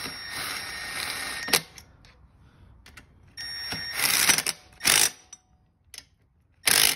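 Cordless power driver spinning a socket to run down 10 mm side-cover bolts on a Honda CRF110 engine, snugged without overtightening. A first run of about a second and a half ends in a sharp click, a second run starts about halfway, and short loud bursts follow near the end as the bolts seat.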